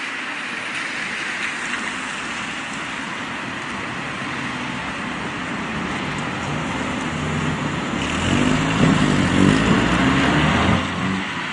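A motor vehicle's engine passing close by, building from about seven seconds in, loudest for a few seconds, then falling away near the end, over a steady rush of street and wind noise.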